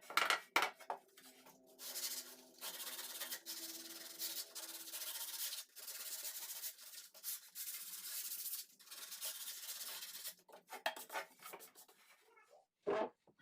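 Sandpaper being rubbed over wood by hand in irregular strokes, with short pauses between them.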